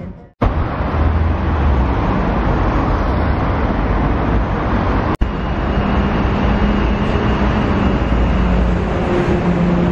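Steady traffic noise from passing cars on a city street, with a low engine hum. It breaks off for an instant twice, just after the start and about halfway through.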